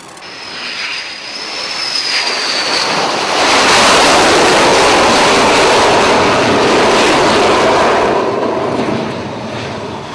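Carrier fighter jet landing on an aircraft carrier's flight deck: a high jet-engine whine drifting down in pitch on approach, then a loud engine roar from about three and a half seconds in as the jet comes onto the deck, easing off near the end.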